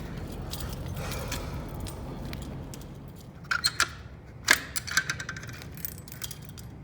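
A handful of sharp metallic clicks and clinks, grouped a little past halfway, from a fire alarm pull station being handled. A steady low hum runs underneath.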